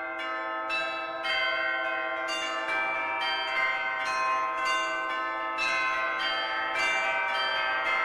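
Church bells ringing a peal, struck one after another two or three times a second, each bell ringing on under the next.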